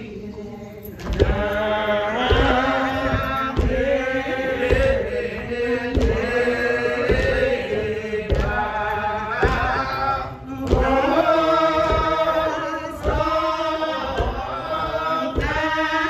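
A woman singing a hymn slowly, with long held, wavering notes and no instruments. Low thumps keep a slow beat under the singing.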